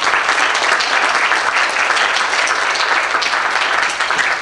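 Audience applauding: a steady patter of many people clapping that starts suddenly just before and keeps up at an even strength.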